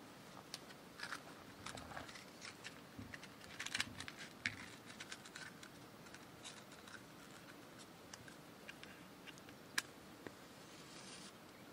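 Quiet handling sounds of a tin hurricane oil lantern and a box of safety matches: light metal clicks and taps from the lantern's wire fittings, and the matchbox being opened and a match drawn out. One sharper click comes near the end, followed by a brief scratchy hiss.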